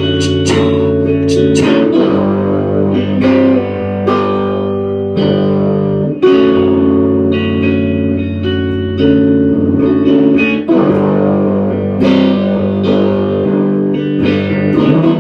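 Instrumental guitar break in a blues-style song: plucked chords, a new one struck about every second, over sustained low notes, with no singing.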